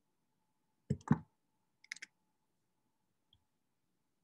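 Clicking from a computer: two sharp clicks about a second in, then a quick run of fainter, higher clicks near two seconds.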